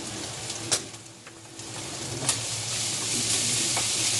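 Chopped pork adobo frying in oil with garlic and onions in a pan, sizzling. The sizzle eases about a second in, then grows steadily louder over the second half, with a couple of sharp clicks from stirring against the pan.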